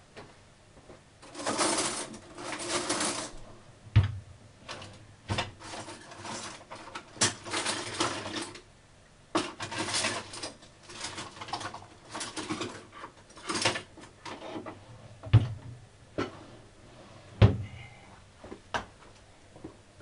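Melting sugar bubbling in a small saucepan on the hob while it caramelises, in irregular spluttering spurts of crackle, with a few sharp pops.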